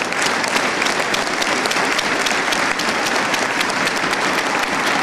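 Crowd applauding: many hand claps over a steady wash of noise.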